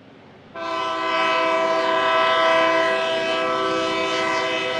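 Union Pacific diesel locomotive's air horn sounding one long blast, a chord of several steady notes sounded together, starting suddenly about half a second in, over the low rumble of the approaching train.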